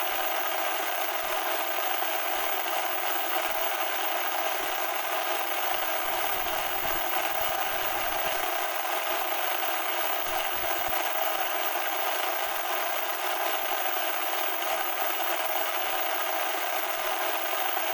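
Steady hiss of analog television static: an even white noise, bright and thin, with little bass.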